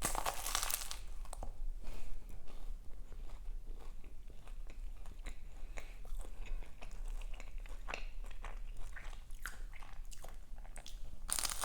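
Close-miked biting into a flaky puff-pastry cheese roll: a loud crunch in the first second, then steady chewing with many small crisp crackles of pastry. Another loud crunchy burst comes near the end.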